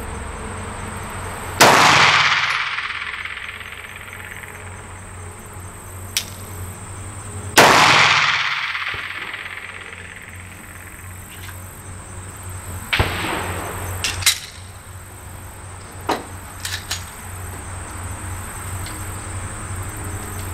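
Two 9mm Glock pistol shots about six seconds apart, each ringing out for a couple of seconds, followed by a few quieter sharp clicks and knocks.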